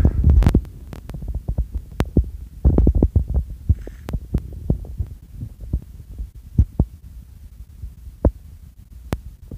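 Muffled low thumps, rubbing and clicks from a handheld phone's microphone being moved and brushed, loudest at the start and again about three seconds in.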